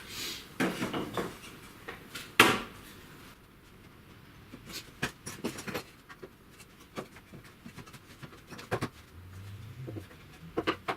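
Scattered wooden knocks and clicks as a timber spacing stick and joists are handled and set in place, with one sharper knock about two and a half seconds in.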